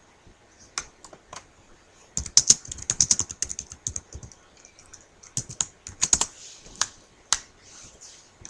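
Typing on a computer keyboard: a few scattered keystrokes, then two quick runs of typing with a pause between them.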